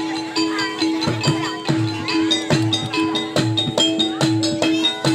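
Javanese gamelan music for a jaran kepang horse dance: a held, pulsing note with chiming metallophone and gong-chime notes, and a low drum beat entering about a second in, two to three strokes a second.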